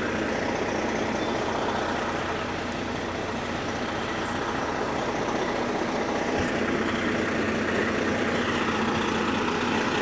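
Fire engine idling with a steady low hum.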